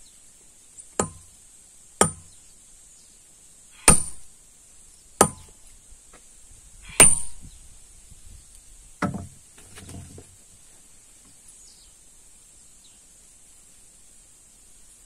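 Hammer blows striking steel to split a stone along a cut: six sharp ringing strikes, a second or two apart, in the first nine seconds, then a softer knock or two.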